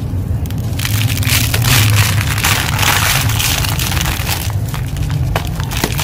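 Fingers crumbling a soft, dusty chunk of concrete, with grit and small stones crackling as they fall into a plastic sieve basket. The dense crumbling starts about a second in and thins to scattered ticks near the end, over a steady low rumble.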